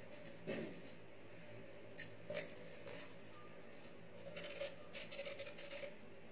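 Faint, dry crackling of red onion skin being peeled off by hand: a few light crackles in the first half and a quick run of them in the second half.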